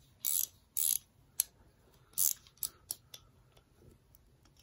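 SK11 Gear Tech 17 mm locking flex-head ratcheting wrench worked by hand: three short ratcheting bursts in the first second, another a little after two seconds, and single sharp clicks in between and just before three seconds.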